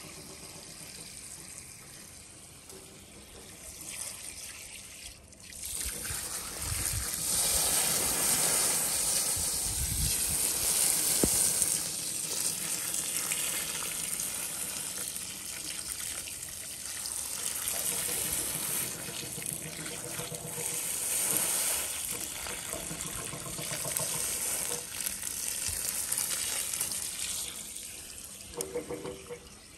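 Water splashing and trickling. It starts faint and swells about five seconds in, rising and falling in waves.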